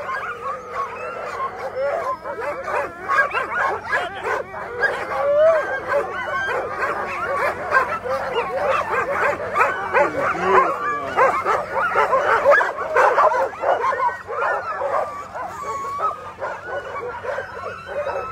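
A team of harnessed Alaskan husky sled dogs barking, yipping, whining and howling all at once in a continuous, overlapping din: the excited clamour of sled dogs hitched up and eager to run before the race start.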